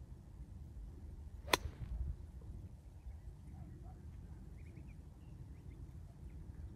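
A golf club strikes the ball from a bare dirt lie: one sharp crack about a second and a half in, over a low wind rumble on the microphone.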